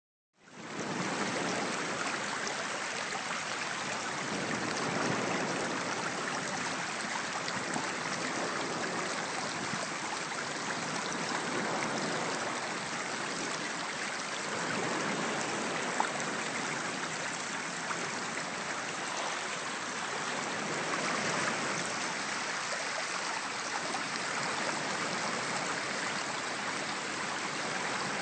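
A stream running steadily over beach pebbles where it flows into the sea, fading in within the first second.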